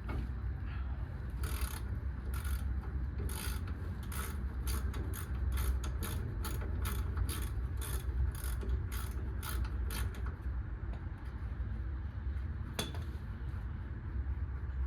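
Hand ratchet wrench clicking in a steady run of quick strokes, about three a second, as a nut or bolt is turned, from about a second in until about ten seconds in; one more sharp click near the end, over a steady low hum.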